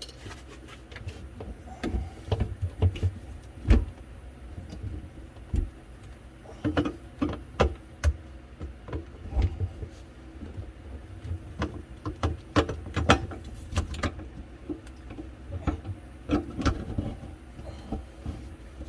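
Irregular knocks, clunks and scrapes of a garbage disposal unit being handled, lifted and twisted onto its sink mounting ring, with a low steady hum underneath.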